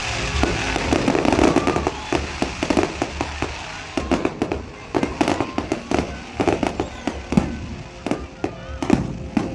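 Fireworks going off in a continuous run of bangs and crackles, which turn into sharper, separate cracks from about four seconds in.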